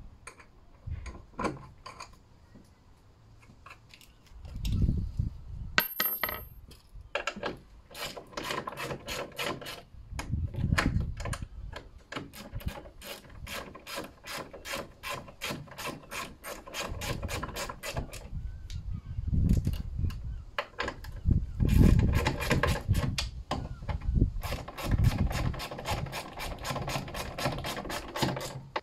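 Socket ratchet wrench clicking in quick runs with pauses between them, tightening the nuts at the top of the front strut on a Mini Cooper. A few dull knocks come in among the runs.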